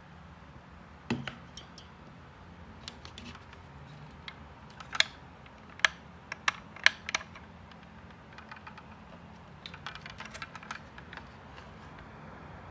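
Irregular light clicks and taps of small plastic and metal parts being handled during the vacuum's repair, with a few sharper knocks in the middle.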